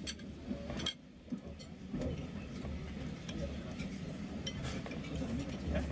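Cutlery and glassware clinking at a dining table: scattered sharp clicks and chinks. Under them runs the steady low rumble of a moving railway carriage.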